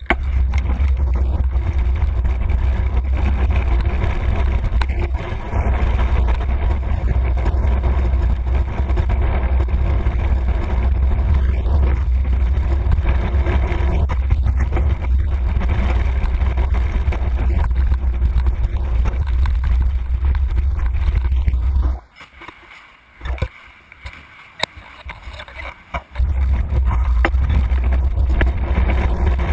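Wind buffeting the microphone of a camera on a moving vehicle, a loud steady rumble mixed with road noise; it drops away for a few seconds near the end, then comes back.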